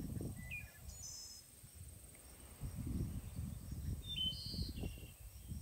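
Outdoor ambience: small birds give a few short chirps, about half a second in, again about a second in, and a cluster of calls near the end, over a steady high insect trill and an uneven low rumble.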